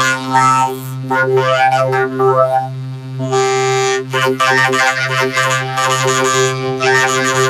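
Cartoon soundtrack music, pitch-shifted upward by a 'helium' voice-effect edit, with shifting melodic notes over a steady low drone.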